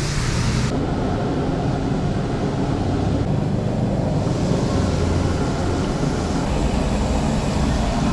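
Steady rumble and sizzle of chicken deep-frying in a large wok of bubbling oil over an LPG gas burner. The higher hiss drops sharply under a second in, and the low rumble carries on.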